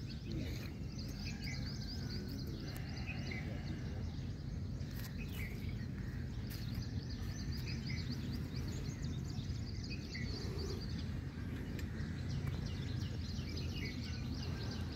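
Steady low outdoor background rumble, with birds chirping in short rapid runs that come and go several times.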